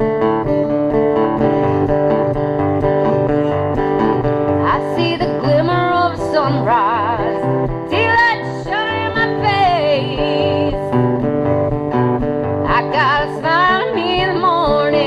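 Live country-style band music: an acoustic guitar strums a steady rhythm, and from about five seconds in a lead melody line bends and wavers in pitch over it.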